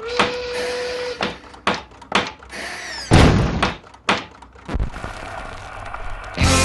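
A quick series of sharp knocks and clicks with a heavy thump about three seconds in, like door and slam sound effects.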